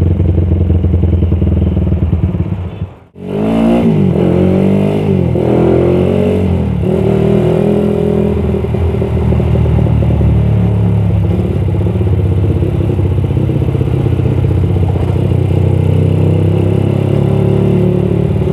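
Suzuki Satria FU motorcycle's single-cylinder four-stroke engine running steadily. After a brief break about three seconds in, it revs up in several rising sweeps as the bike pulls away through the gears, then runs steadily at riding speed.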